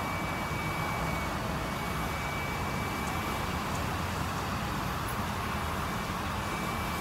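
Steady city traffic on a wet street, with wind buffeting the microphone in low rumbles and a faint steady high whine throughout.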